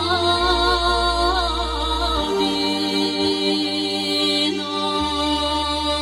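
Bulgarian folk song sung by a woman through a microphone over amplified band accompaniment. Her long held notes waver with ornaments for the first second or so, then settle into steady held tones over a bass that changes note every couple of seconds.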